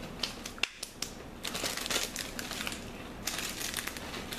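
Crinkly plastic snack wrapper being handled: a few light ticks, then two stretches of crackling crinkle about a second apart.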